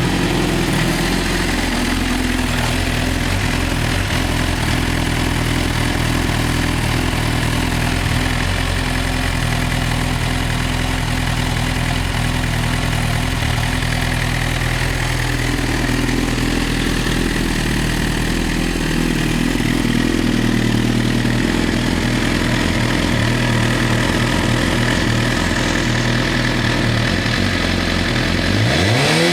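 Suzuki GSX-R1000 K9 inline-four idling steadily through a Yoshimura R77 4-into-1 exhaust. Near the end the revs start to climb.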